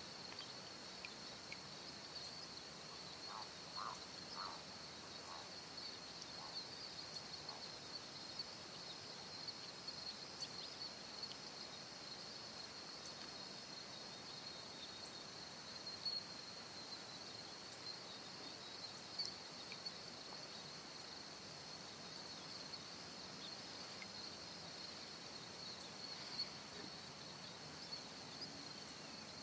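Faint, steady, high-pitched chorus of insects in the early-morning stillness over calm water, with a few short animal calls about three to five seconds in.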